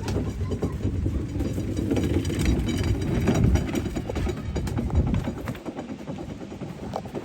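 Low, uneven rumble of a moving car heard from inside, with scattered small knocks; it swells in the middle and eases near the end.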